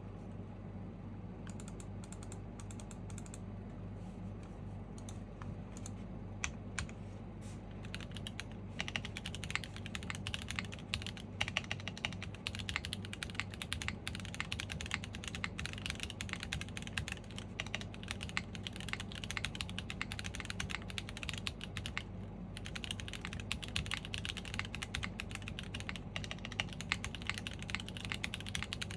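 Typing on a custom mechanical keyboard with Vertex V1 switches in an aluminum plate and GMK keycaps. A few scattered keystrokes at first, then fast continuous typing from about eight seconds in, with a brief pause a little over two-thirds of the way through.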